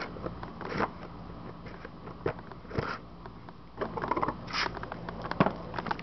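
Handling noise from a round plastic record case being turned over in the hand: scattered light clicks and scrapes, with a few brief rustles.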